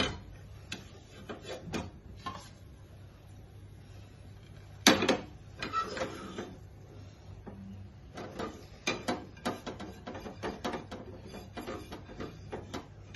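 A silicone spatula scraping and knocking against a non-stick frying pan as thick, cooked milk-powder dough is scooped out onto a plate. The scrapes and taps are irregular, with the loudest knock about five seconds in and a run of quicker taps later on.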